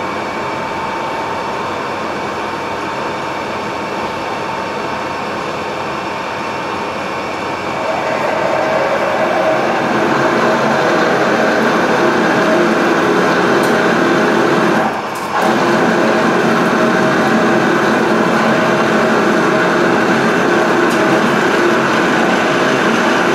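Metal lathe running with a resharpened twist drill fed from the tailstock into a spinning steel bar, giving a steady machine hum mixed with cutting noise. The noise gets louder about eight seconds in and picks up a few steady tones, and it drops briefly about fifteen seconds in.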